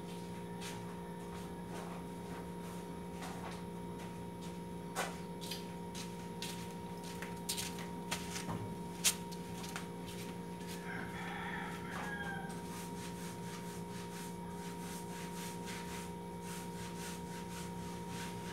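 Scattered clicks and light knocks of household items being handled over a steady hum, with a short animal call about eleven seconds in.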